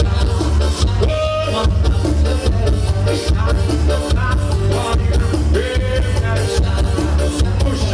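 Loud forró music with a strong, steady bass beat under a melody line.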